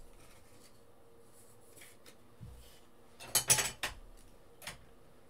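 Hard plastic clicks and clatter as a plastic card stand is set down on the table and a top-loaded trading card is slotted into it. A soft thud comes first, then a quick cluster of knocks about three and a half seconds in, the loudest part, and a single click a second later.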